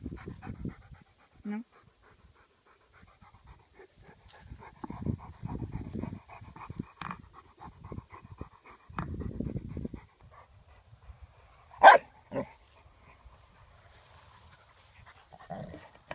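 Rottweiler panting hard with a rapid, hoarse rhythm while it works at a rubber tyre, with a few bursts of low rustling and scraping. One short, loud, sharp sound comes about twelve seconds in.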